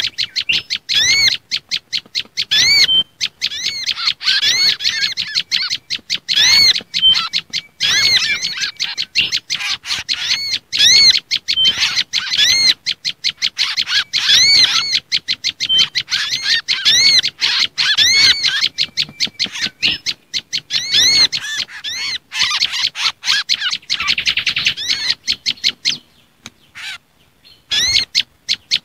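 Bird-lure call recording mixing agitated prenjak lumut calls with kancilan bakau (mangrove whistler) and sogon (sunbird) calls: a rapid, dense run of high arched chirps, dropping away briefly near the end.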